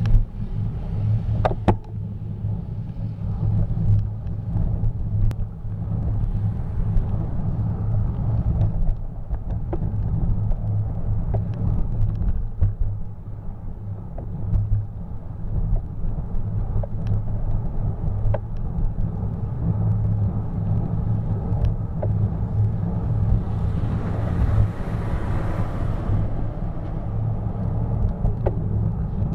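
Steady low rumble of wind and road noise on a bicycle-mounted camera while riding, with occasional light clicks. Near the end, a louder rushing hiss swells for about two seconds as a garbage truck passes close.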